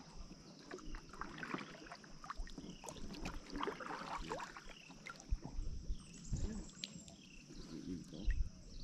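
Kayak paddle strokes in calm river water: quiet dipping and dripping splashes, with a few light knocks scattered through.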